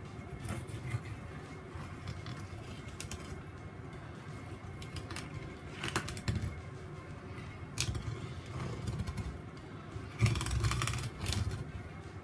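Long kitchen knife cutting between the backbone and flesh of a small tuna on a plastic cutting board: low scraping and handling sounds with scattered clicks of the blade on bone and board, and a louder stretch of scraping and handling about ten seconds in.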